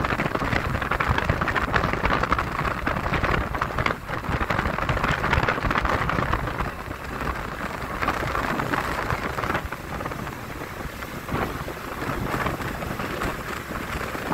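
A boat's wake churning and splashing behind the stern, a steady loud rush of water with gusts of wind buffeting the microphone.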